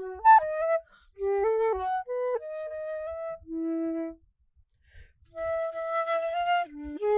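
Solo melody on a wind instrument, played in quick stepped notes. It breaks off briefly about four seconds in, then resumes with a long held note.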